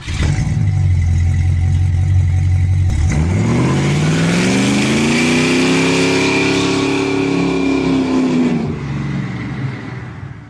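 Car engine running steadily, then about three seconds in it revs up, its pitch climbing over a couple of seconds and holding high before falling away and fading near the end.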